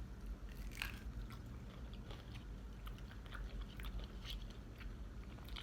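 Close-up chewing and biting of fast food: scattered small crunches and wet mouth clicks over a low steady hum.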